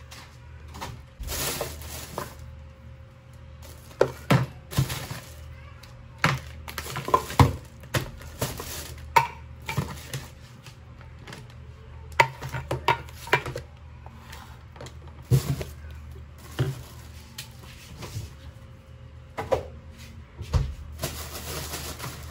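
Tin cans and other groceries being taken out of a plastic carrier bag and set down one by one on a kitchen counter: irregular sharp knocks with a short metallic ring, with the bag rustling now and then.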